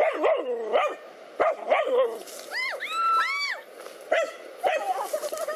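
Dogs barking at a snake in a string of short, sharp barks, with a run of high-pitched yelping whines about halfway through, then more barks.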